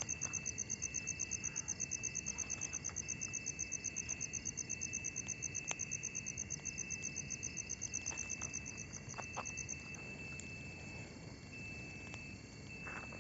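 Night insects calling, cricket-like: a high chirp pulsing several times a second that stops about ten seconds in, over a steady high drone from other insects. A few faint clicks near the end.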